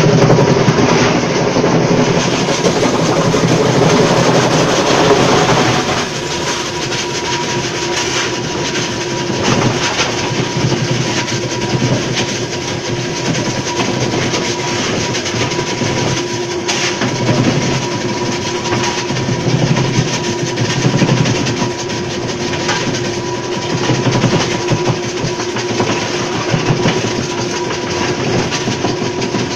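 Electric block-ice crusher running with a dense, steady mechanical rattle and a constant hum, heavier for the first six seconds or so.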